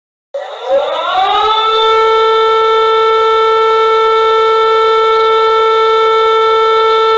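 Civil defense siren starting up from silence, winding up in pitch over about a second and a half, then holding one loud steady tone.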